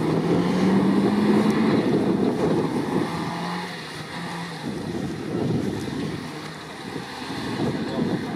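Off-road trial Suzuki Samurai's engine working under load as the 4x4 crawls through brush. The engine pitch rises slightly over the first couple of seconds, then drops and the level falls off around the middle.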